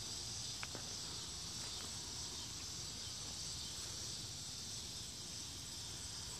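Steady high-pitched chorus of insects trilling, with a couple of faint clicks in the first two seconds.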